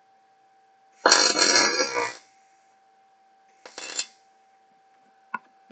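Two short bursts of electric arc welding: tack welds fusing steel wire mesh to angle iron. The first lasts about a second and starts about a second in; the second is shorter, just before four seconds. A sharp click follows near the end.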